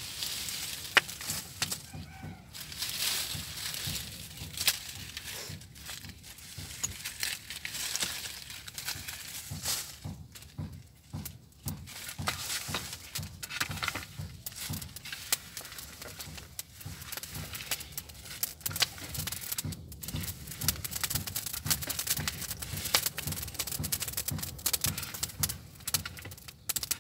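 Wood fire crackling and hissing inside a clay bread oven, with many small sharp cracks over a low rumble. At times a long metal poker scrapes and knocks the burning wood and embers.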